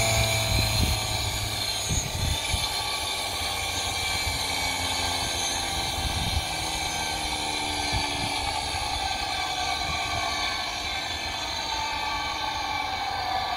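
Small homemade steam turbine spinning with a whine that slowly falls in pitch, over the steady hiss of exhaust steam venting from it. It is the sign of the woodstove boiler's steam running short: the heat source is too small to keep the turbine going.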